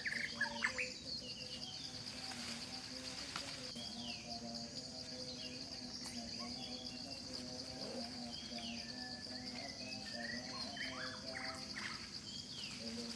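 Forest ambience: a steady high-pitched insect drone, with scattered short bird chirps and calls over it.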